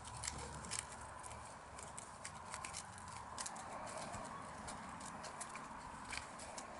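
English goldendoodle puppies scrambling and tussling on grass strewn with dry leaves: faint rustling with irregular sharp crackles and ticks.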